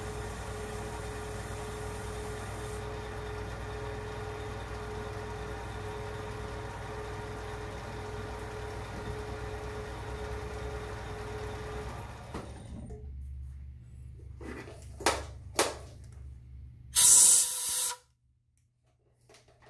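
Metal-turning lathe running steadily with a constant whine, then switched off about twelve seconds in and running down to a low hum. Two sharp clicks follow, then a loud short burst of noise before it goes quiet.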